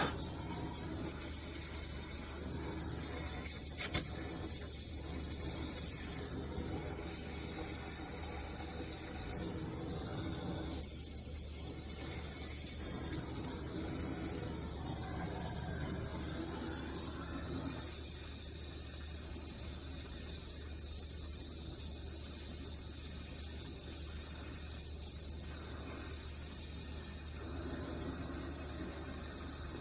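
Brazing torch flame hissing steadily on the refrigerant line joints, with a single sharp click about four seconds in.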